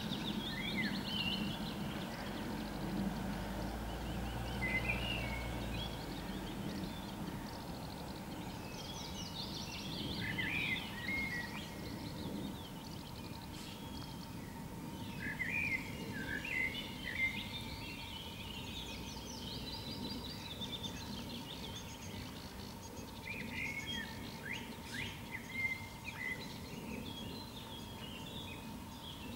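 Songbirds singing, several chirping and trilling calls overlapping in clusters, over a steady low background rumble.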